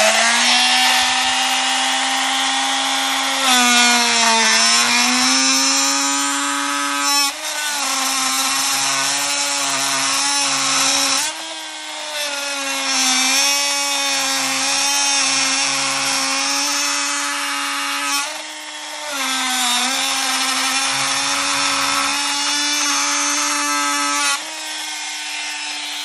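Original Milwaukee M12 (non-Fuel) oscillating multi-tool running at full speed, plunge-cutting its blade into a wooden board. Its pitch dips several times as the blade is pushed into the wood, then recovers.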